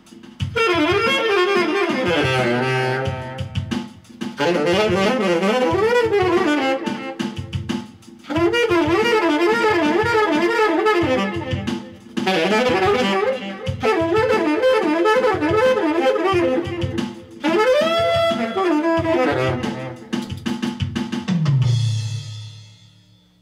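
Saxophone playing a jazz line in phrases of about four seconds, with sliding, bent notes and a honking tone that the player likens to an elephant blowing its horn, over a drum beat. The last phrase drops to a low note that fades out near the end.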